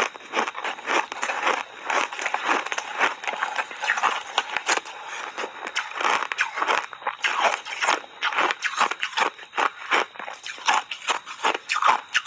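Close-up crunching and chewing of thin ice chips made with milk and dusted with matcha powder: a continuous run of quick, crisp crunches, several a second.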